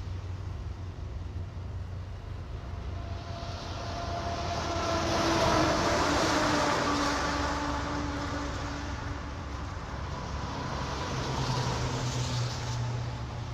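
A vehicle passing by: a rush of noise swells to a peak about six seconds in, with tones sliding slowly down in pitch, then fades. A second, smaller swell comes near the end, over a steady low hum.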